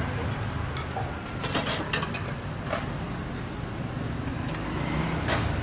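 Steady low hum of street traffic, with a few sharp clinks of metal tongs and utensils at the stall, a cluster of them about one and a half seconds in and another near the end.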